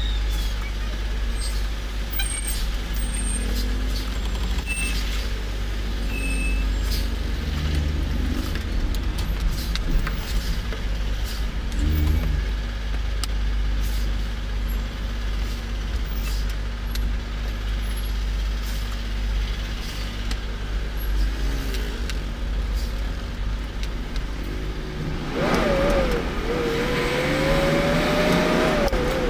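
Heavy diesel truck engine idling steadily, heard from inside the cab, while cars and a van pass close by. About 25 seconds in, the engine speeds up with a rising whine as the truck pulls away.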